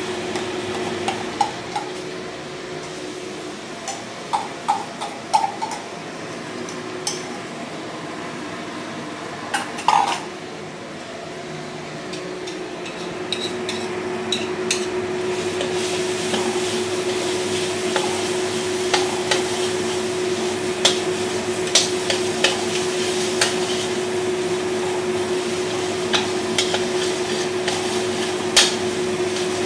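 Metal spatula clinking and scraping against a stainless steel wok and a metal bowl, as bean paste is scraped into the wok and then stir-fried. Scattered clicks at first and one louder knock about ten seconds in, then quick, continual tapping and scraping over a steady hum.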